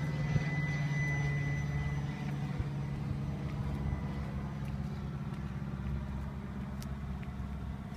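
A motor vehicle's engine running steadily, a low hum that eases off slightly after about two seconds and leaves a low rumble.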